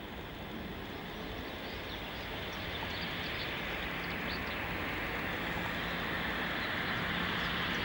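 Airbus A321 on final approach, the rushing noise of its twin jet engines growing steadily louder as it comes closer.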